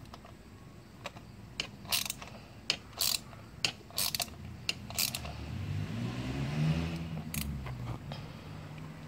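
Ratchet wrench on an extension clicking in short, irregular strokes as a new spark plug is tightened down in its plug well. A low hum swells and fades in the second half.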